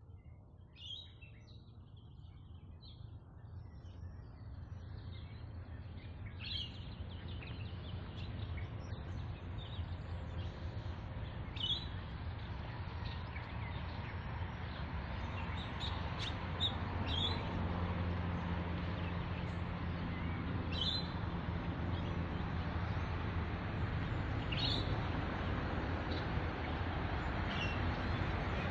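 Birds giving short, scattered chirps over a steady low outdoor rumble that slowly grows louder.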